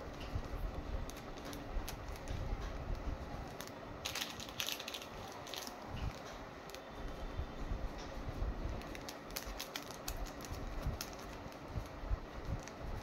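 Clear plastic rakhi packets being handled and turned over: irregular small crinkles and clicks of the plastic sleeves, with a denser rustle about four to five seconds in, over a low handling rumble.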